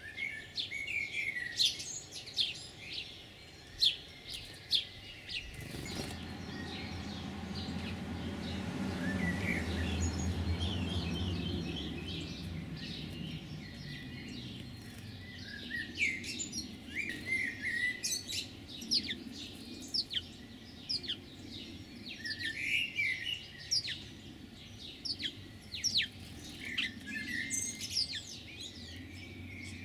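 Small songbirds chirping, with many short, sharp calls in quick succession. About six seconds in, a low rumble swells, peaks a few seconds later and fades away by about fourteen seconds.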